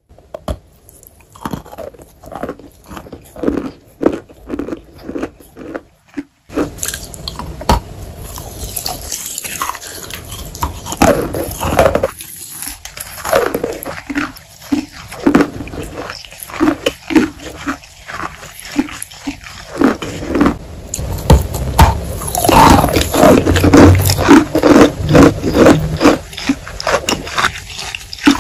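Close-miked crunching and chewing of a wet chalk block: scattered sharp crackles for the first few seconds, then continuous crunchy, wet chewing that grows louder and denser in the last several seconds.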